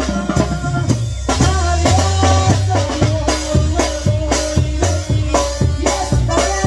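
Tamborazo band playing live: a tambora bass drum with a cymbal on top keeps a steady beat, about two hits a second, under a saxophone melody and keyboard.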